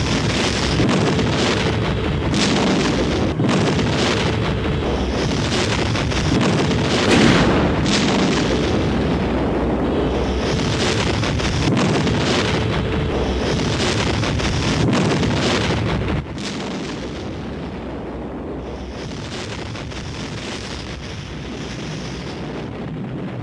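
Cinesound library explosion effects: a continuous dense roar of blasts and rumbling with many sharp cracks. About 16 seconds in it drops suddenly to a quieter, steadier rumble.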